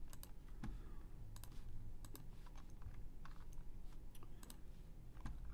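Faint, irregular clicking of a computer mouse and keyboard, a dozen or so scattered clicks.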